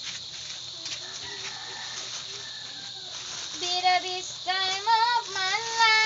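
A steady high insect buzz. Over it, starting a little past halfway, come three loud wavering pitched phrases, the last one held longest, from a singing voice or a rooster crowing.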